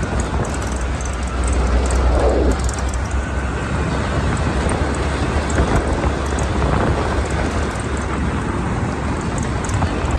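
Steady low rumble of wind buffeting the phone's microphone, with road and engine noise from an auto-rickshaw moving along the road.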